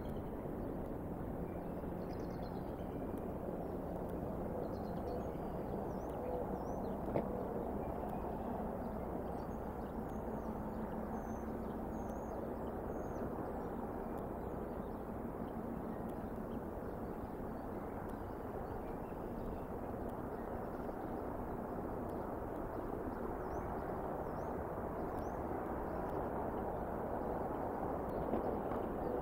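Steady outdoor wind noise on a bald eagle nest-cam microphone, with faint short high bird chirps here and there and a single light tap about seven seconds in.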